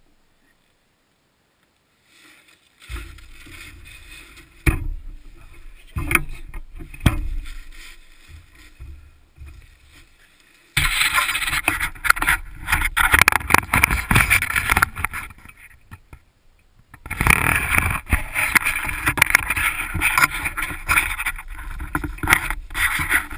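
Snowmobile engine revving in short blips a few seconds in, then suddenly at full throttle about halfway through, letting off briefly and pulling hard again near the end, heard close to the primary clutch and drive belt.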